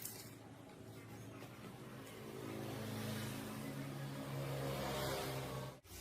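An engine running steadily. It gets louder about two seconds in and cuts off abruptly near the end.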